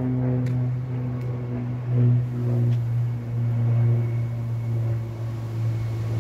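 Onboard engine of a moored river barge running with a steady low hum, swelling and easing slightly.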